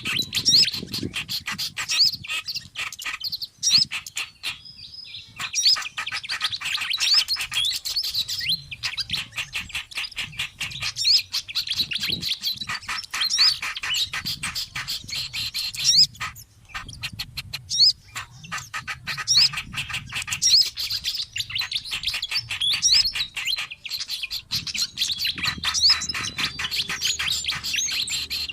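Bird-lure recording of several small songbirds calling together in an agitated, noisy mix: fast runs of sharp chirps and short upswept whistled notes, pausing briefly a few times.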